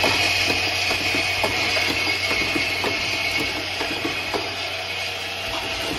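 Automatic lighter-fluid filling and capping line running, its vibratory bowl feeder rattling the plastic caps: a steady hum and hiss with a rapid, irregular clatter of small clicks.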